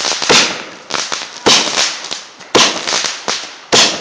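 Consumer fireworks going off: five loud bangs at uneven intervals of roughly a second, each trailing off in a short crackle.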